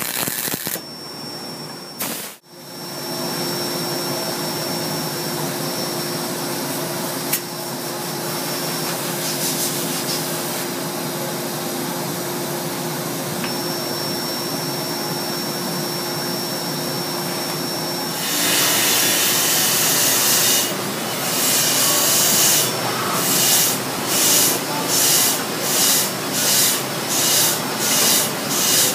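Steady hum of shop machinery around a band saw blade butt welder. About two-thirds through it gives way to a louder hiss that pulses in even swells, coming faster toward the end, as the blade is readied for the weld.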